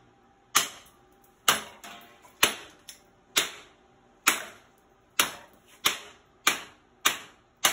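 Hand-forged chopper knife chopping into a block of wood clamped in a bench vise: about nine sharp chops, roughly one a second, coming faster after about five seconds in.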